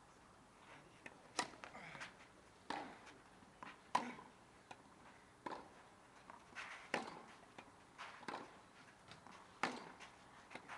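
Tennis rally on a clay court: a ball struck back and forth by racket strings, giving sharp pops about every second and a half, with softer knocks from the ball bouncing between them.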